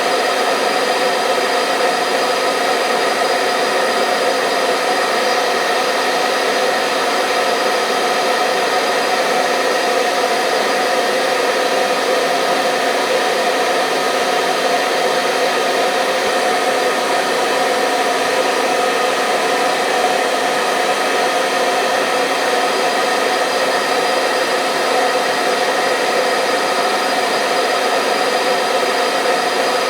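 Electric hair dryer running steadily: a constant rush of blown air with steady motor tones, without any change in speed or level.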